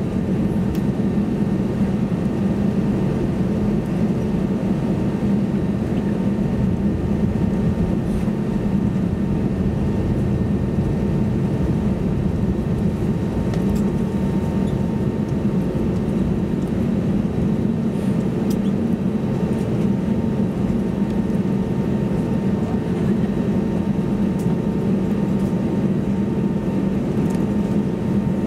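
Steady cabin hum inside an Airbus A320neo with its CFM LEAP-1A engines running, heard from a seat near the front. The hum is mostly low, with a few faint thin tones above it and a few faint ticks.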